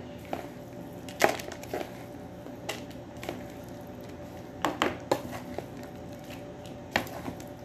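Scattered light clicks and knocks of kitchen utensils and dishes as rice stuffing is handled for mahshi, heard over a faint steady hum.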